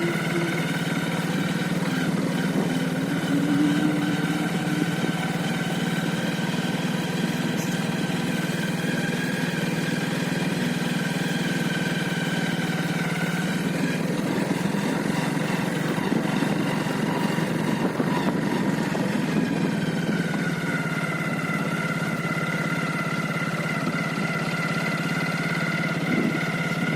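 A steady engine drone: a constant low hum with higher whining tones over it that sag a little in pitch around the middle and rise again later.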